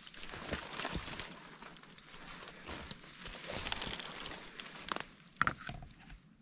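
Footsteps pushing through dense brush and dry leaves, stems scraping and twigs snapping in irregular clicks, with one sharper crack about five and a half seconds in.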